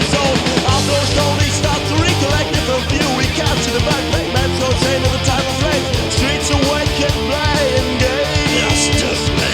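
Loud German punk rock crossover song in an instrumental stretch: a wavering, bending lead melody over a steady, dense band backing.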